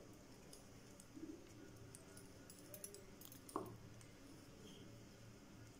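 Near silence: faint room tone with a few soft clicks and one sharper tap about three and a half seconds in.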